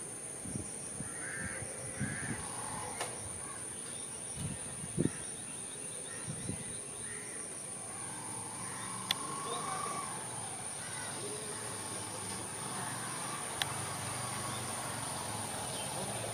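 Outdoor ambience of distant birds calling in short scattered calls, over a steady high-pitched drone, with a few soft low thumps in the first half.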